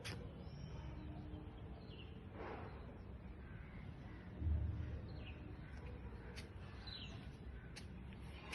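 Birds chirping and calling, short scattered chirps over a steady low rumble, with a brief low bump about halfway through.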